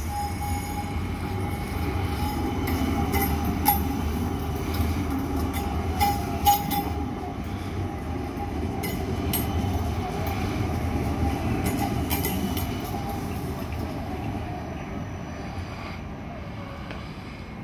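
Light rail tram passing at low speed: a running rumble with a steady whine and a few sharp clicks, fading as it draws away near the end.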